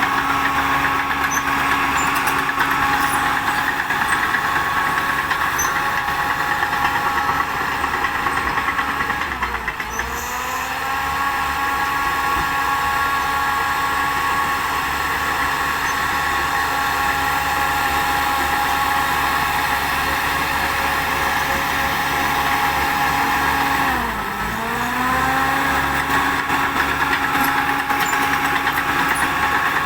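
Shantui DH10B2 bulldozer running steadily with a whining drive tone. Twice, about ten seconds in and again near the end, the pitch sags sharply and then climbs back up, as the machine loads or changes direction.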